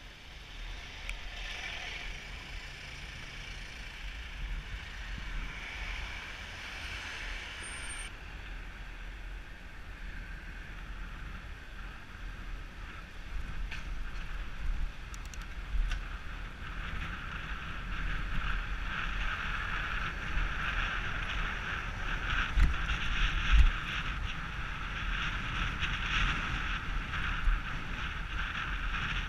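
Wind rumbling on a helmet camera's microphone while cycling in traffic, with tyre and passing-vehicle noise; the sound changes abruptly about eight seconds in, and a few low thumps come about three-quarters of the way through.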